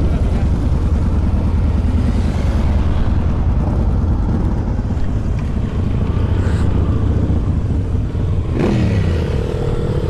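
Motorcycle engines idling beside a highway, with traffic going by. Near the end a passing vehicle's sound drops sharply in pitch.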